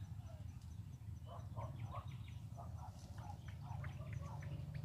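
Wild birds chirping and calling in quick short notes, many overlapping, over a steady low rumble.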